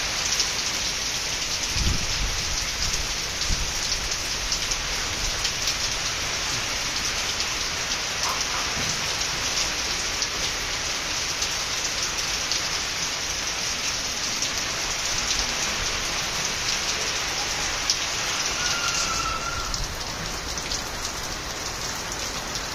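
Heavy rain pouring down, a dense, even hiss of drops pattering on surfaces. It turns a little quieter and softer near the end.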